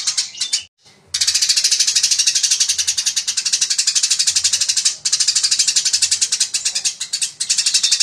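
Caged Eurasian tree sparrow chattering in a fast, dense stream of chirps, about a dozen a second, in the excited 'fighting' style kept as a master recording. The chatter breaks off briefly about a second in, at about five seconds and again near seven seconds.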